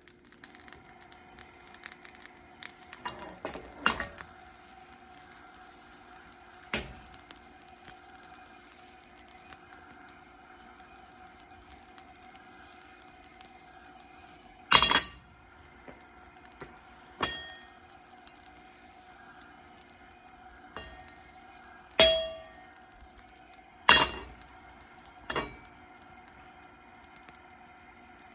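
Pots, pans and utensils knocking and clinking, about seven sharp strikes spread out over a faint steady background, a few of them ringing briefly.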